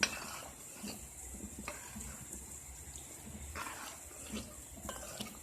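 Spoon stirring a pot of soft boiled chickpeas in their liquid: irregular wet scrapes and sloshes, roughly one a second.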